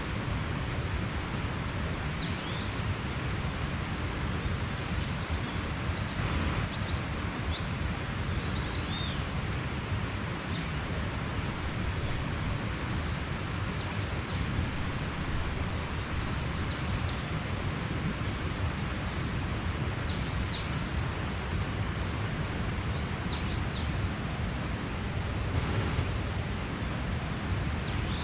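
Mountain stream rushing steadily, with a small bird giving short, high chirps every second or two over it.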